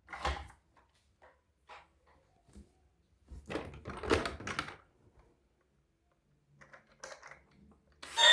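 Handling noises from toys and their packaging being unboxed: scattered light clicks and knocks, with a busier cluster of them about three and a half to five seconds in and another shorter one near the end.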